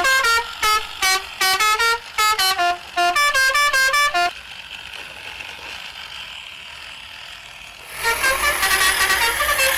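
A musical horn beeping out a quick tune of short notes that step up and down in pitch, for about four seconds. A soft hiss follows, then music starts about eight seconds in.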